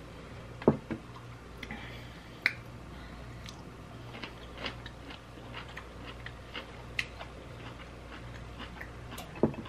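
Close-miked chewing and wet mouth clicks of someone eating a mouthful of baked beans, with a few sharper clicks scattered through, over a faint steady low hum.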